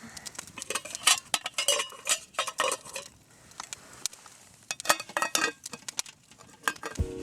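Metal utensils clinking and scraping against cookware: an irregular run of sharp clicks and clinks, some ringing briefly, with a short lull partway through.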